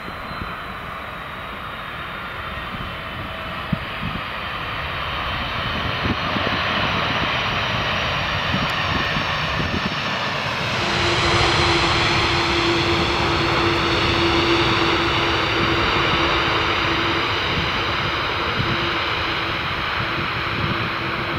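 Boeing 747-400's four GE CF6-80C2 turbofans during landing, touchdown and rollout, the jet roar growing louder as the airliner comes down and passes. About halfway through it gets louder again, and a steady drone joins that holds to the end.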